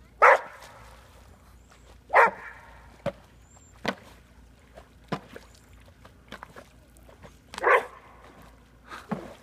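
A dog barking at a duck decoy it takes for a real duck: loud single barks right at the start, about two seconds in and near the end, with quieter short barks in between.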